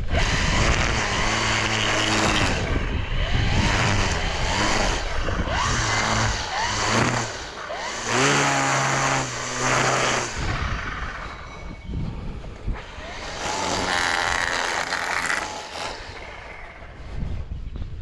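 String trimmer cutting grass in about four bursts, its whine rising and falling as the throttle is squeezed and let off, with quieter gaps between bursts and a fall-off near the end.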